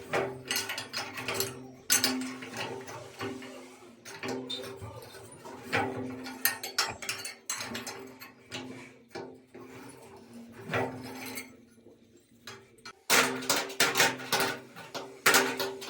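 Irregular clicking and rattling of a hand-worked metal mechanism, with a quieter stretch about three-quarters of the way through before the clicks come thick again.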